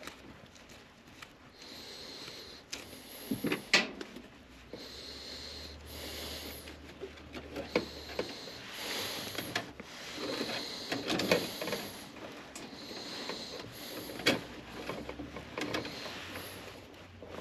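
Irregular clicks, taps and rustling of hands working on wiring and parts inside an air handler's control compartment, with several sharp clicks, the loudest about four seconds in.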